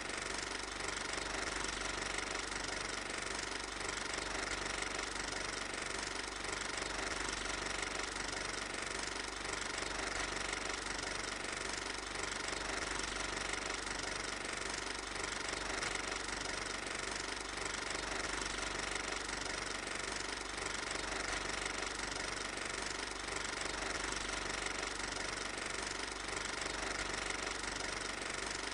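Steady mechanical running with a fine rapid clatter that never changes: an 8mm film projector running during the transfer of the silent home movie.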